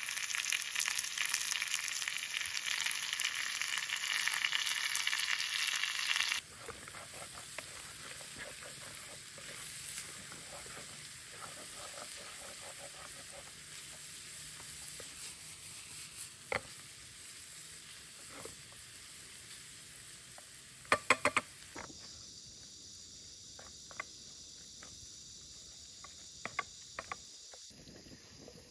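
Minced meat frying in a frying pan of potatoes and onions over a campfire. Loud sizzling for about six seconds, then quieter sizzling as a wooden spatula stirs the food. There are a few sharp taps of the spatula, a quick cluster of them about three-quarters of the way in.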